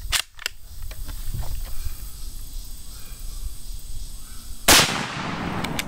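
A single rifle shot from a CZ 527 carbine firing 7.62x39 Golden Bear 125-grain soft point ammunition, about three-quarters of the way in, its report dying away over about a second. A few light clicks come near the start.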